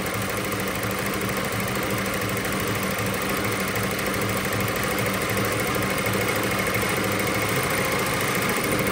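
ZSK multi-needle embroidery machine running, its needle bar stitching steadily through fabric in a hoop with an even mechanical clatter.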